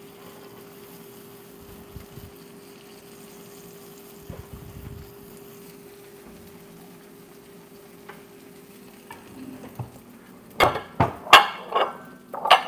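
Eggs scrambling in butter in a skillet, sizzling quietly while a spatula stirs and breaks them up, over a faint steady hum. From about ten seconds in comes a quick run of loud knocks and clinks of the spatula and cookware.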